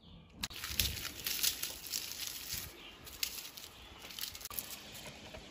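Dry garlic skins crackling and crinkling as a head of garlic is peeled apart by hand, in quick, irregular crackles from about half a second in.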